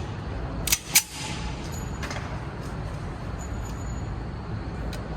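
Two sharp gunshot cracks about a third of a second apart, then a steady low background rumble.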